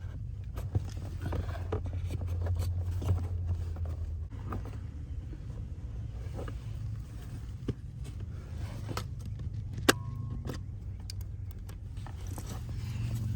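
Scattered metal clinks and taps of hand tools and loosened parts during removal of a car's AC compressor, over a steady low hum, with one sharp click about ten seconds in.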